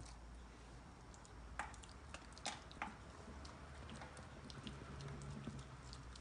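Close-up eating sounds: chewing with small wet mouth clicks, and a handful of sharper clicks between about a second and a half and three seconds in.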